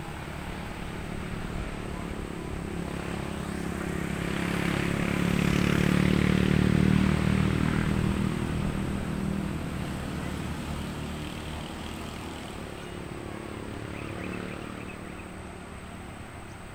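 An engine passing by: a steady hum that swells to its loudest about six to seven seconds in, then slowly fades away.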